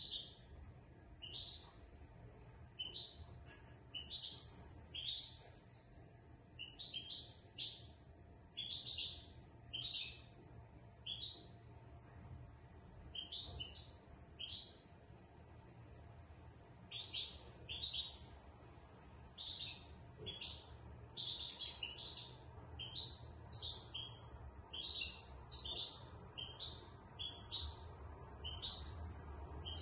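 European goldfinch of the large 'major' race singing from its cage: short, bright chirps and twitters, spaced out at first, then a quicker, denser run of notes through the second half.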